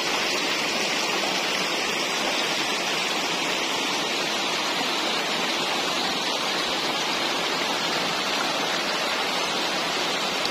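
A shallow, rocky stream rushing steadily.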